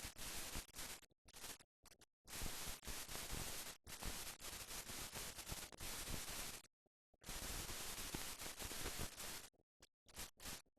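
Steady static hiss with no other sound in it, dropping out abruptly to dead silence several times: the blank soundtrack of a mute newsreel.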